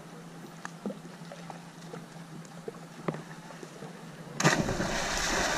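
Quiet lakeside ambience with a faint steady hum and a few small clicks, then about four and a half seconds in a loud rushing, splash-like noise lasting over a second.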